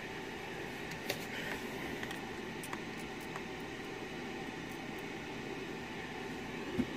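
Steady background hiss like a fan running, with a few faint clicks from small parts being handled.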